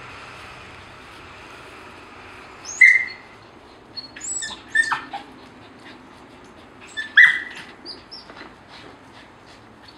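Nova Scotia duck tolling retriever giving short, high-pitched yelps as it leaps at a ball hanging from a rope, the loudest about three, five and seven seconds in, with faint ticks in between.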